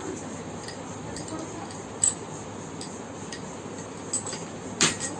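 Dishes clinking: a few sharp knocks of a small glass bowl against a plastic mixing bowl as chopped tomato is tipped in, the loudest knock near the end.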